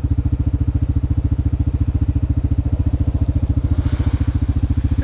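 ATV engine idling close by with a rapid, even beat. From about four seconds in, a hiss of spray and engine noise rises as an ATV ploughs through shallow water.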